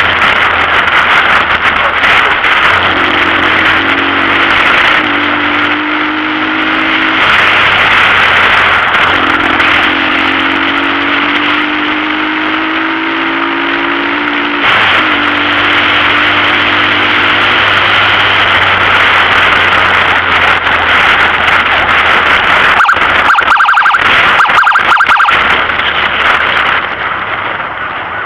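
Vehicle driving at speed: continuous loud engine and road noise.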